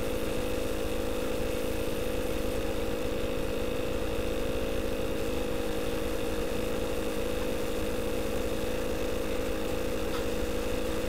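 Steady machine-like hum with several held tones over a hiss, unchanging throughout.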